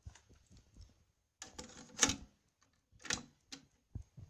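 Teac W-600R double cassette deck being operated by hand: a series of sharp plastic clicks and clunks from its buttons and cassette transport. The loudest clunk comes about two seconds in.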